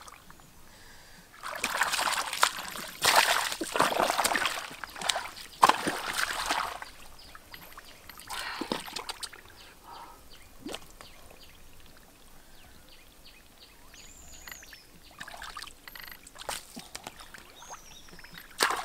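Hands splashing and sloshing in shallow muddy water while groping for fish, in loud bursts in the first half and again briefly near the end, with a quieter stretch of small drips and trickles between.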